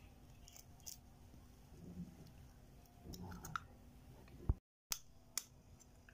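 Eggs being cracked open over a steel mixing bowl: a few faint clicks and taps of eggshell, soft handling noise, and one sharper knock about two-thirds of the way through, just before the sound cuts out for a moment.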